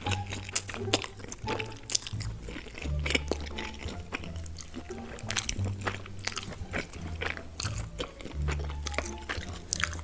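Close-miked slurping and chewing of spicy fire noodles, many short wet clicks and smacks throughout, over background music with a plodding bass line.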